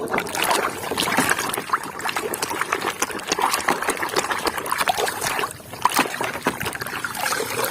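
Water splashing and trickling as a muddy plastic toy car is washed by hand, with many small clicks and knocks of plastic in the water.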